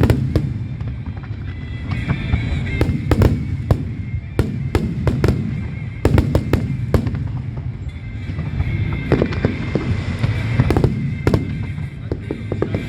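Aerial fireworks display, shells bursting in quick, irregular succession, several bangs a second at times, over a continuous low rumble of distant reports.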